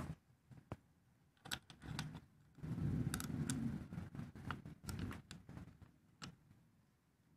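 A mini chainsaw's plastic body, handle and chain being handled and fitted together by hand. Scattered clicks and knocks, with a longer stretch of scraping and rattling about three seconds in.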